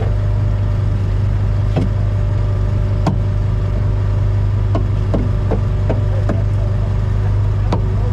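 Fishing boat's engine running steadily while pots are hauled, with a few sharp knocks and clatters of gear against the boat scattered through it.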